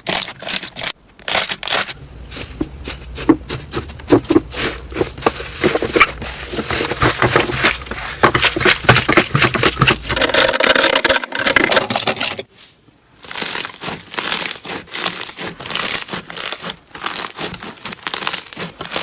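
Crunchy slime being squeezed and pressed by hand, giving dense crackling and popping clicks that stop briefly about two-thirds through, then start again.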